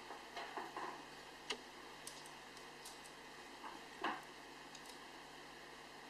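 A few faint, short clicks and taps from small tools and wire being handled against a circuit board during hand soldering, the two clearest about a second and a half and four seconds in, over a low steady hum.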